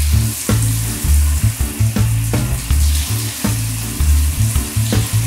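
A steady hiss like spraying water, the sound effect of a Little People Big Animal Zoo playset's toy hose, over background music with a repeating bass line.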